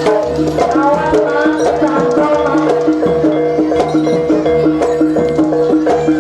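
Jaranan gamelan music: drums and gong-like pitched percussion repeating short notes in a quick, steady beat, with a wavering melody line over it in the first half.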